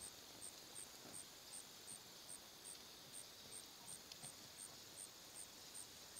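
Faint, even chirping of an insect in the background, a high-pitched pulse about two to three times a second, with a few faint thuds of a horse's hooves cantering in arena sand.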